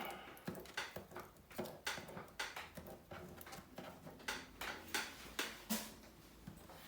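A string of irregular light clicks and taps from small tools and phone parts being handled while a smartphone is taken apart or put back together.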